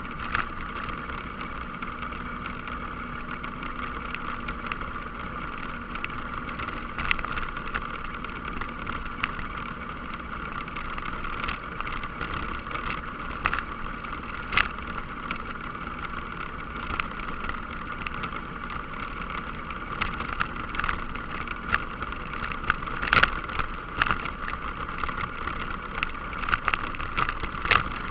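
ATV engine running steadily as it rides a gravel trail, with sharp clicks and knocks from stones and bumps scattered through, growing more frequent near the end.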